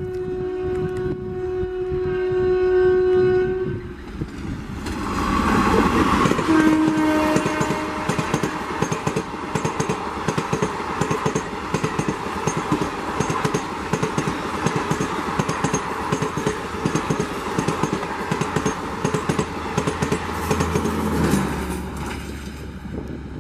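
Electric locomotive's air horn held in one long steady blast for about four seconds. After a break, an express train passes close at speed: continuous rushing noise with rhythmic wheel clatter over rail joints, a short horn note about seven seconds in, fading near the end as the last coach goes by.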